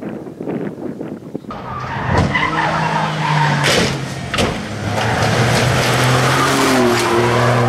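A Peugeot 208 rally car's engine running hard with tyre noise, and sharp knocks near the middle as the car rides up on two wheels against a steel guardrail. The revs then rise as it drives on.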